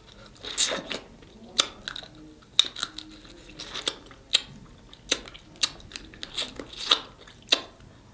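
Snow crab shells cracking and crunching as the legs and claws are broken open and eaten, with chewing. There are about a dozen sharp cracks at uneven intervals.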